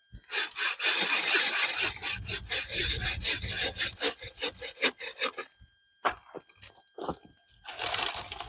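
Hand saw cutting through a firewood log in quick, even back-and-forth strokes for about five seconds, then a short pause and a few more strokes near the end.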